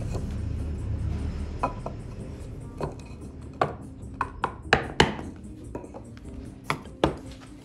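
Mallet striking a wooden-handled chisel in oak: about ten sharp wooden knocks, irregular and bunched closest together around the middle.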